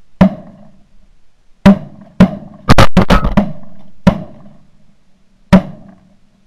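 A volley of shotgun blasts at ducks, about nine shots from several guns, with a quick burst of four around three seconds in. Each shot is sharp and loud, with a short echo.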